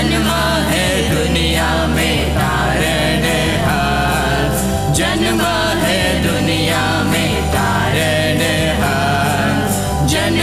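A small group of men's and women's voices singing a Hindi Christmas song together, over an electronic keyboard accompaniment with a steady bass line.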